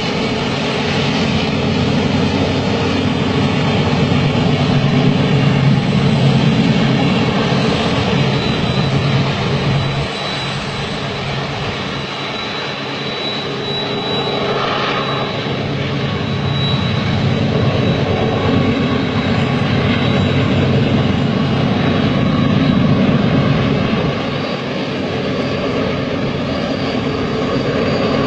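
Long double-stack freight train hauled by several diesel locomotives, a steady loud rumble of engines and rolling wagons that swells and eases. A thin high tone comes and goes, brightest about halfway through.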